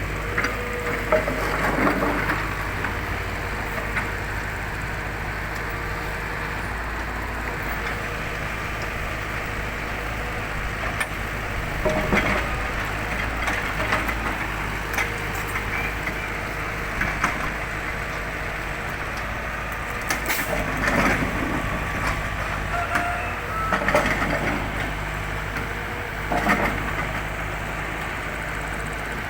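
Heavy road-construction machinery running steadily with a low engine drone, with occasional clattering knocks and cracks from the work, several of them in the second half.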